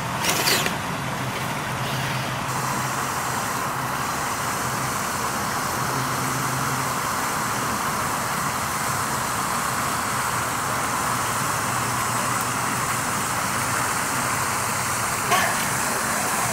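Traxxas TRX-4 Sport RC crawler's electric motor and geartrain whirring on and off as it climbs rock and wades through water, over a steady hiss of rain and water. Two sharp knocks, one about half a second in and one near the end.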